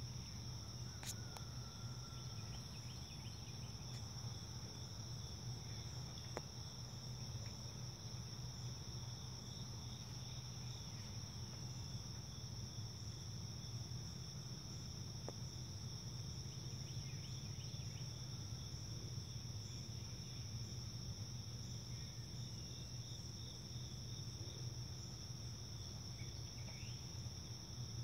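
Steady high-pitched insect chorus that holds unbroken throughout, over a constant low hum, with a few faint short chirps here and there.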